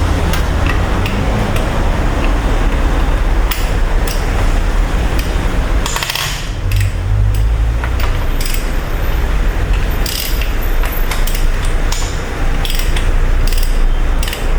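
Hand ratchet wrench clicking in short runs as bolts are undone to take off the water pump, over a steady low rumble.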